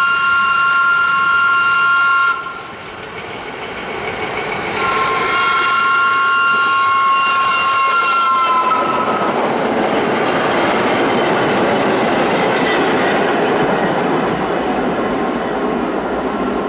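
Vintage BMT D-type Triplex subway train sounding its two-tone horn twice, a short blast ending about two seconds in and a longer one whose pitch sags as the train draws level. The cars then pass close by with the steady rumble and clatter of wheels on rail.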